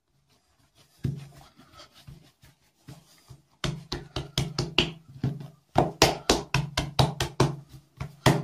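Hands kneading a ball of pişi dough on a tabletop: soft pats and thumps of the palms pressing the dough against the table. A few come at first, then from about four seconds in a quick, regular run of about four a second.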